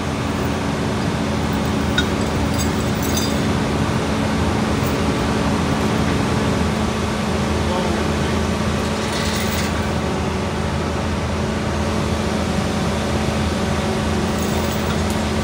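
Heavy diesel construction machinery running with a steady drone: a Wirtgen W 200 Fi road milling machine with an excavator alongside. One low hum drops out about seven seconds in, and a sharp clink comes about two seconds in.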